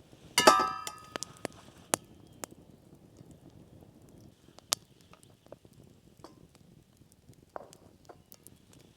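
Metal cookware clinks sharply once, ringing briefly, about half a second in, followed by sparse small clicks and crackles, likely from a campfire.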